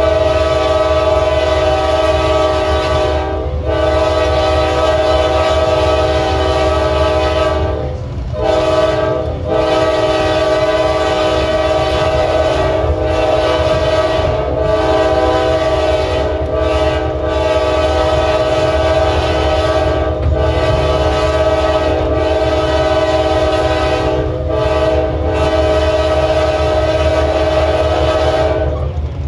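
Amtrak Dash 8-32BWH 503's Nathan K5LA five-chime air horn sounding a long series of about a dozen blasts, mostly long, separated by brief breaks and cutting off near the end. A steady low rumble of the moving train runs underneath.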